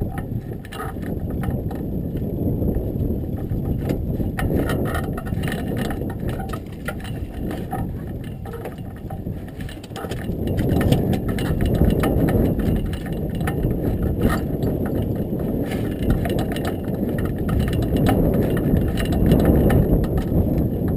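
Wind rumbling on the microphone, swelling and easing, with many small clicks and knocks from handling the fishing rod and reel.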